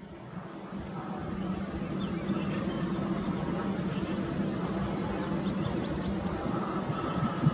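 Steady hum of a stationary EN57AL electric multiple unit's equipment, with a higher steady tone joining near the end.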